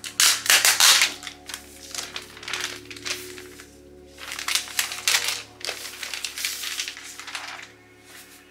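A clear plastic sleeve crinkling and rustling in repeated bursts as a laptop is slid out of it and the plastic is handled, over soft background music.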